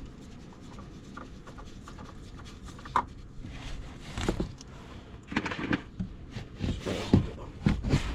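Hands handling oil-change parts at close range: light clicks and taps, one sharp click about three seconds in, then several short rustling, rubbing bursts in the second half.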